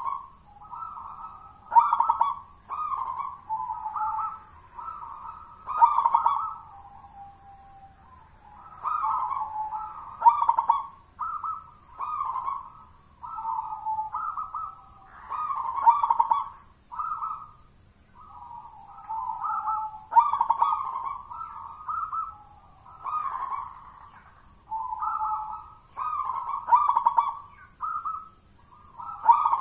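Local zebra dove (perkutut) singing its cooing song: rolling phrases of several short notes, repeated again and again with brief pauses between them. It is a full, thick-voiced song of the kind kept as a lure for other perkutut.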